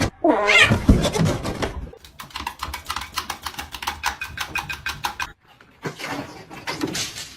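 A cat meows, then comes a quick, even run of light clicks lasting about three seconds.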